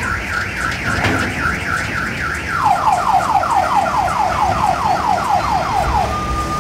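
Electronic warning siren of a tyre-wheeled tourist road train, a rapid chirping pattern of about four rising sweeps a second that switches about 2.5 seconds in to about four falling sweeps a second, then stops shortly before the end.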